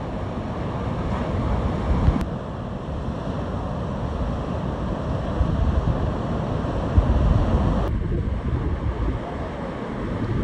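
Heavy hurricane-swell surf breaking, a continuous rush of water with wind buffeting the microphone in gusty low rumbles. The sound changes abruptly twice, about two and eight seconds in.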